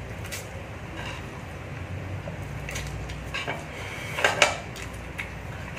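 Chopsticks and a spoon clinking and scraping against a bowl of instant noodles during eating, with a louder clatter a little past four seconds in, over a low steady hum.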